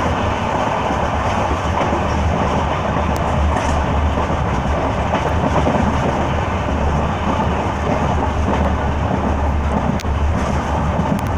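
Electric-hauled passenger train running at speed, heard from inside the coach: a steady, loud rumble of the wheels on the track, with a few isolated clicks.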